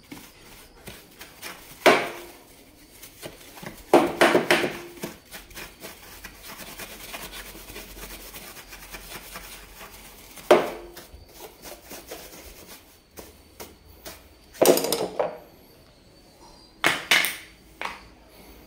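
Dust being scrubbed off a motorcycle's plastic air filter housing: a long run of quick rubbing strokes, broken by several louder knocks and scrapes.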